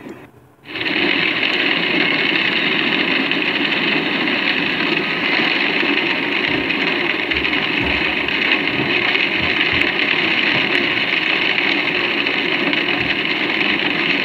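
Steady, loud rushing of storm wind, starting about half a second in after a brief dip and holding even throughout.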